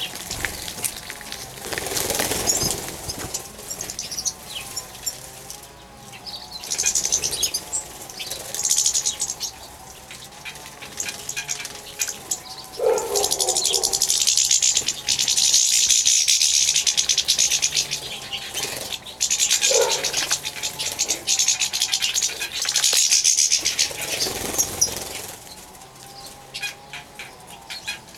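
European goldfinches and a serin bathing in a shallow water dish: repeated bursts of wing-fluttering splashes, the longest lasting several seconds, with small sharp sounds between.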